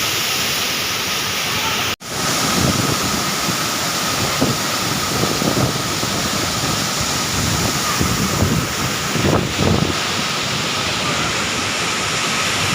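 Waterfall rushing in a steady, loud wash of noise, cutting out for an instant about two seconds in, with irregular low bumps against the microphone for much of the rest.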